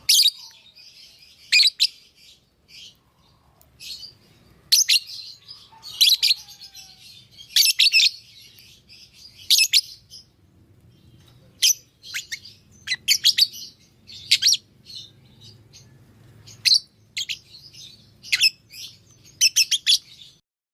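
Pet parrot chirping in short, high-pitched bursts, one every second or two, sometimes two or three in quick succession.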